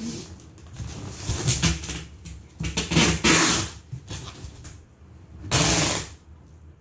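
Packing tape pulled off its roll in three long pulls, about a second and a half, three seconds and five and a half seconds in, with rustling and knocks from the cardboard box being handled between them.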